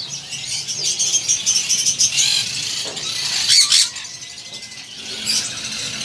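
Many caged birds chirping together: short, high chirps overlapping throughout, with a few louder calls about two and a half and three and a half seconds in.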